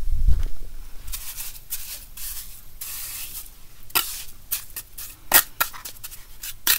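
Trowel spreading and scraping wet cement-sand mortar over a concrete footing: a run of rasping strokes, with a few sharper short scrapes in the second half.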